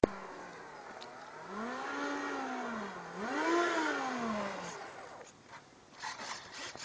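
Motor of a radio-controlled Su-34 model jet revving up and back down twice, its pitch rising and falling each time, the second run-up the louder. A few short scraping sounds follow near the end.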